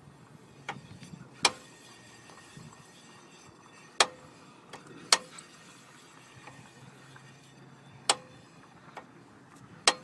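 Rear brake caliper on a Toyota Vista SV-41 knocking: six sharp, irregularly spaced metallic knocks with a short ring. The knock is a brake pad moving loose in the caliper because its anti-rattle clips are missing.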